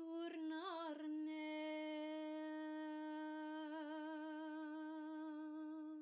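A woman's voice singing light language: a few short syllables, then one long, steady, humming note held for about five seconds, wavering slightly near the middle.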